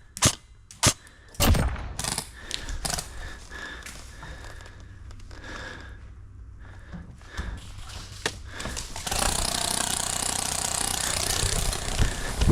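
A few sharp airsoft gun shots in the first second and a half, then low handling and movement noise. From about nine seconds in comes a steady loud rushing noise.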